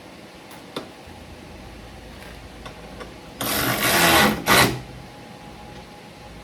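A cordless power tool's motor runs in a burst of about a second, then a second short burst, as a fastener is driven during a toolbox installation. A few light clicks of handling come before it.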